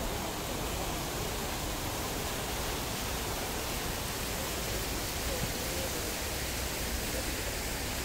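Fountain water splashing and rushing in a stone channel, a steady, even hiss.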